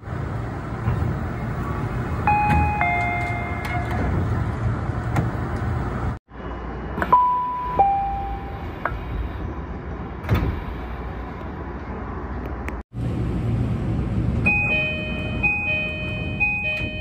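Door-closing sequences of three Japanese commuter trains in turn: Tobu 50000 series, Tokyu 5000 series, then JR East E235-1000 series. The first two each give a falling two-note door chime over the steady hum of the train at the platform, and the Tokyu doors shut with a sharp knock. The E235's door chime repeats about four times near the end.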